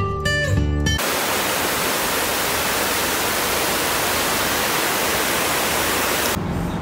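Water pouring down a stepped cascade fountain: a steady, even rushing hiss that starts sharply about a second in, after a moment of acoustic guitar music, and cuts off abruptly near the end.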